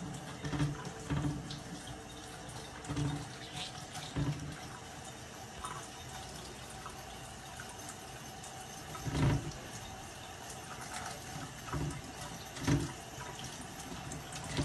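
Water running and splashing, with a few soft knocks.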